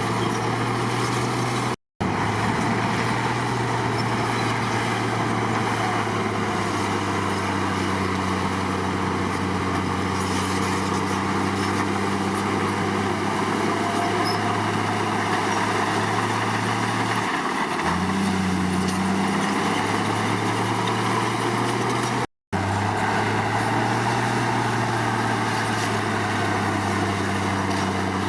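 Komatsu D53 bulldozer's diesel engine running steadily under work, with a brief rise in engine speed about two-thirds of the way through. The sound cuts out completely for a moment twice.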